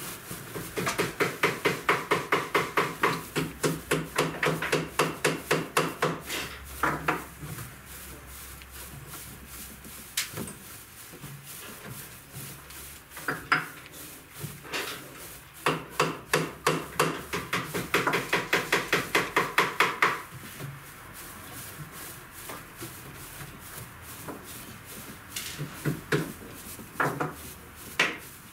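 Hands teasing and working loose upholstery stuffing fibre over a taut jute-covered sofa seat: quick, even rubbing strokes, about four or five a second, in two long runs, with a few single scratches between.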